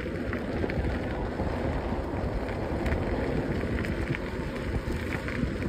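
Steady rumble of wind on the microphone and tyre noise from an e-bike rolling along a gravel rail trail at speed.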